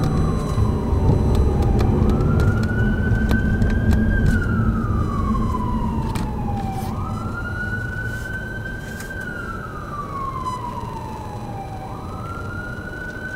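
An emergency vehicle siren wailing in slow cycles: each one rises quickly, holds briefly, then falls away slowly, repeating about every five seconds. Under it is a heavy rumble of city traffic that eases off during the second half.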